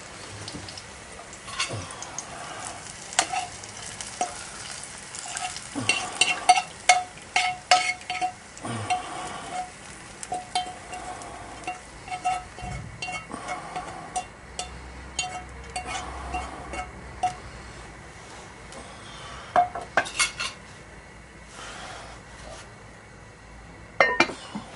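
Fried onions being scraped out of a frying pan into a pot of beer, with repeated scrapes and short ringing clinks of a utensil against the pan. Near the end the heavy lid is set onto the red enamelled pot with a couple of knocks.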